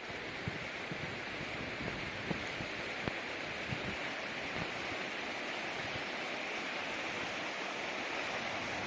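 Steady rush of flowing water from a river or stream, with faint scattered knocks beneath it.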